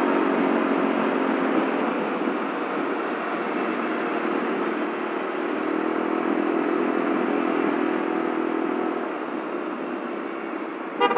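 Yamaha Mio Soul scooter's single-cylinder engine running steadily at cruising speed, with road and wind noise, easing off slightly near the end.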